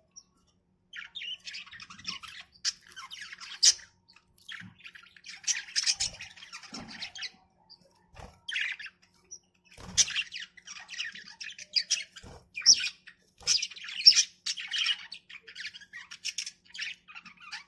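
Budgerigars chattering and squawking in quick, choppy bursts, with a few short pauses and some sharp clicks among the calls.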